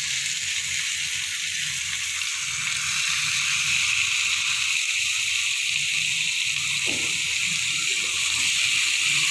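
Spice-marinated fish pieces sizzling on a hot oiled grill pan, a steady hiss with a faint low hum underneath.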